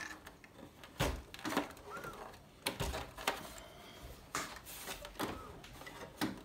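A string of sharp plastic clicks and knocks, about seven spread over six seconds, from hands handling the opened Polaroid PlaySmart 3D printer's plastic shell.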